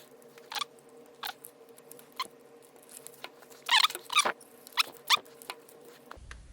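Old plastic case of a Casio PB-2000C pocket computer creaking and squeaking in short chirps, with sharp clicks, as its snap-in tabs are pried with a flat screwdriver. The loudest squeaks come in a cluster about four seconds in.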